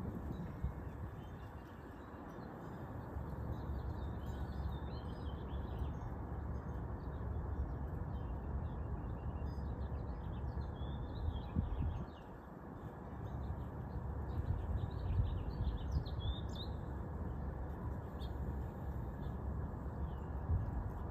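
Small birds chirping and trilling on and off over a steady low background rumble.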